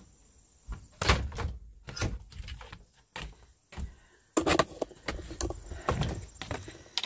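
A door being opened and shut, amid a string of knocks and bumps that get busier in the second half.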